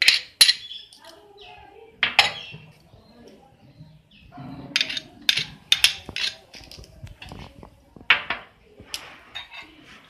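Sharp clinks and taps of a utensil knocking against a glass mixing bowl as chopped ingredients are scraped into it, coming in scattered strokes with a quick cluster in the middle.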